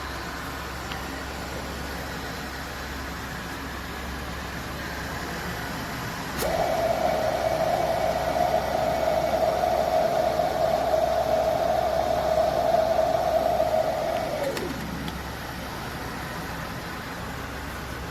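Water pouring in a steady stream from an electric gooseneck kettle's spout for about eight seconds, starting with a click about six seconds in and tailing off near the end, over a steady background hiss.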